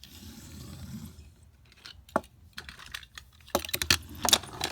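Irregular sharp clicks and clatters of small hard objects: one about two seconds in, then a quick uneven run of them near the end.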